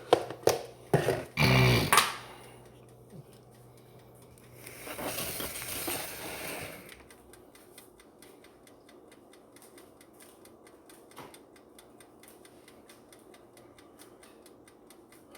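Kitchen cookware clattering and knocking for about two seconds, then a brief rushing, scraping noise a few seconds later. After that it is quiet, with a faint, fast, regular ticking.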